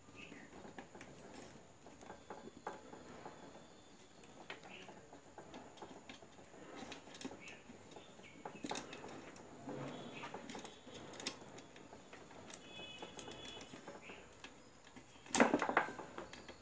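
Small clicks, taps and rustling from hands handling wiring, a mains plug and a roll of insulating tape on a workbench, with one louder clatter about 15 seconds in.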